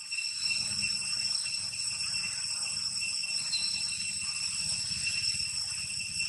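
Steady high-pitched insect drone, several unwavering shrill tones held without a break, over a low rumble.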